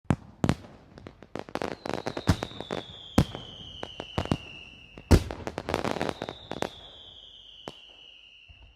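New Year fireworks and firecrackers going off all around: a dense run of sharp bangs and crackling, with the loudest bang about five seconds in. A long, slowly falling whistle sounds twice over the bangs.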